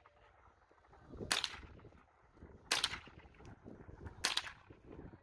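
Three single shots from an AR-style rifle, fired one at a time about a second and a half apart.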